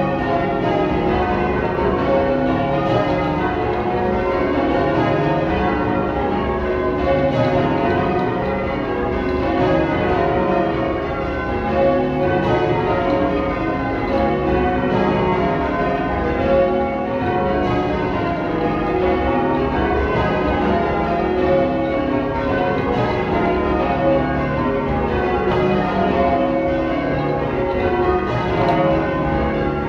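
Change ringing on the twelve-bell ring of a church tower, tenor about 28 cwt in C sharp, the bells striking one after another in a continuous, unbroken sequence of overlapping rings.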